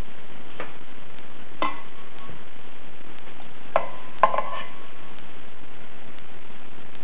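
A stainless steel mixing bowl clinking a few times, each knock ringing briefly, with a cluster of clinks around four seconds in, over a steady hiss.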